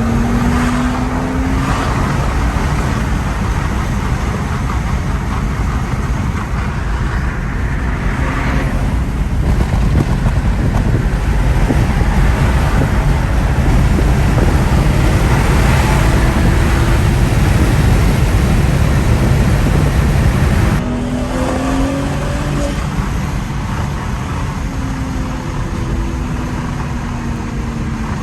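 Engine and road rumble of a high-horsepower BMW heard from inside the car, building to a loud, sustained pull. The level drops suddenly about three-quarters of the way through, as if the throttle is lifted, and the engine pitch then rises again.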